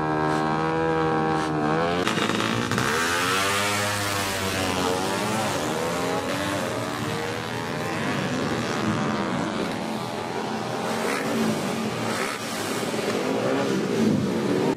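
Drag-racing motorcycle engines revving hard, their pitch sweeping up and down again and again as they rev and accelerate, with an abrupt change in the sound about two seconds in.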